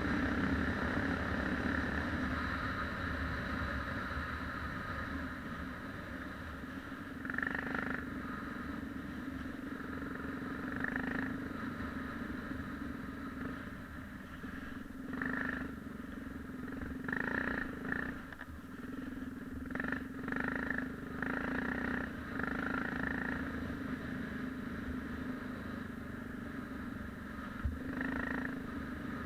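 Yamaha XT 600 single-cylinder four-stroke motorcycle engine running under way off-road, with repeated short surges in level as the throttle is blipped and opened.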